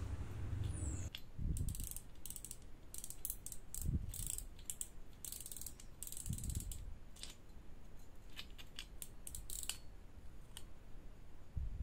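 Front drag knob of an Iroly Exceed 800 spinning reel clicking in quick, irregular runs as it is unscrewed to free the spool. A few dull handling knocks come in between.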